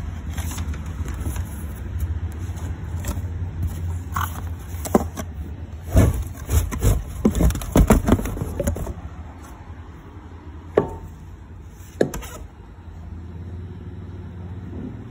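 Unboxing handling sounds: a cardboard box and paper being scraped and rustled, with a cluster of knocks and clicks about six to nine seconds in and two single sharp knocks later as the strut is handled and set down. A low steady rumble lies underneath for the first half.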